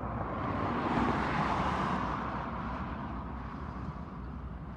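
A road vehicle passing close by: tyre and engine noise swells to a peak about a second or two in and fades away. Underneath is a steady low rumble from the train's diesel locomotives.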